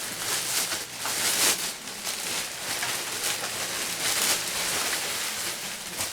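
Plastic packaging bag crinkling and rustling continuously as it is handled, swelling louder in irregular bursts.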